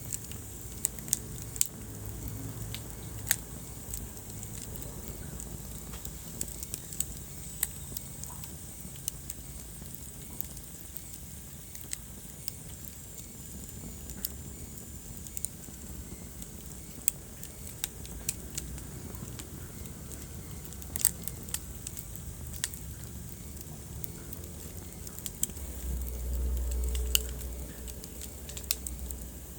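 Wood fire crackling in a fireplace: irregular sharp pops and snaps over a low rumble of burning, which swells louder for a couple of seconds near the end.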